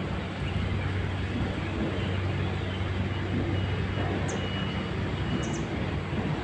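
A machine running steadily: a low, even hum under a constant rushing noise, with a couple of faint high ticks about four and five and a half seconds in.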